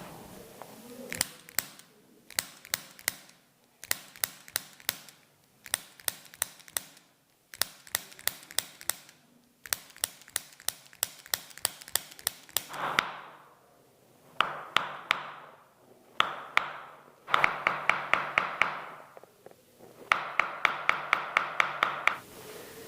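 Quick bursts of sharp taps, several a second, with short pauses between the bursts. From about halfway on, a steady hum runs under the bursts.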